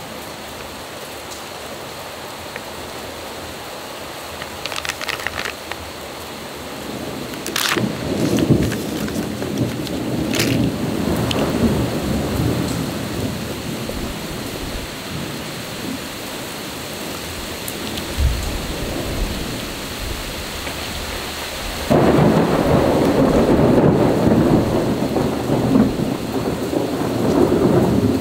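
Crinkly plastic snack sachets being handled and squeezed close to the microphone: bursts of crackling rustle over a steady hiss, growing suddenly denser and louder about three quarters of the way through.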